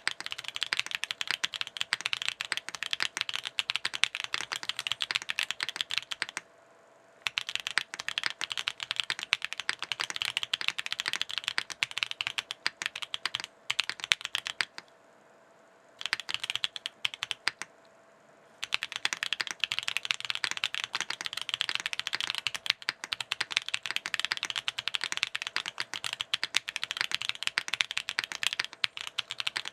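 Steady fast typing on a foamless NEO65 Core Plus mechanical keyboard with WS Studios Heavy Tactile switches and KKB Nichirin keycaps, a clacky sound. The typing breaks off briefly about six seconds in, and for about four seconds around the middle.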